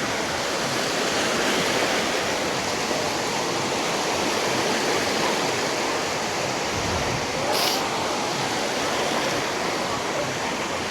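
Surf washing onto a sandy beach: a steady rushing of breaking waves, with one brief sharper hiss past the middle.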